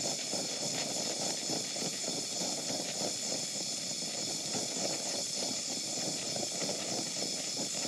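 Oxyacetylene welding torch flame hissing steadily while it melts a weld pool on a steel tube.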